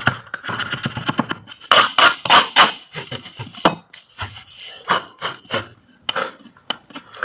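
Metal scraper scraping flaking old paint off a smooth wall in short, irregular strokes, with metal tools clinking and knocking down onto a wooden counter.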